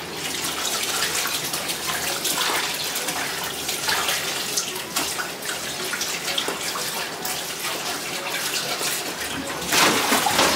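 Water running from a kitchen tap into a sink, a steady rush with light clinks now and then. It grows louder briefly near the end.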